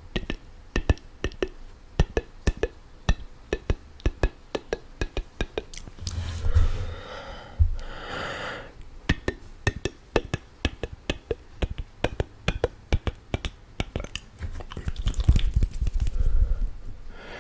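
Close-miked ASMR mouth sounds: wet tongue and lip clicks and pops in quick, irregular succession. There are two breathy hisses about six and eight seconds in, and a low rumble of breath on the microphone near the end.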